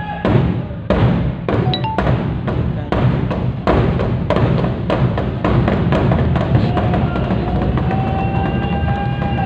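Drum-led music with a steady beat of about two strokes a second. A long held higher note comes in near the end.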